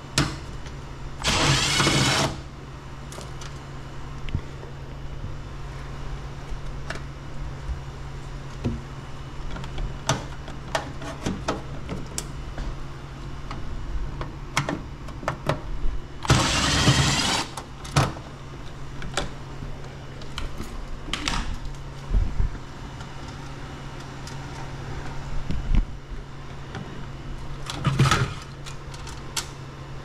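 DeWalt cordless screwdriver on a flexible shaft extension driving screws in three short runs of about a second each: near the start, about halfway and near the end. Small clicks and a steady low hum lie underneath.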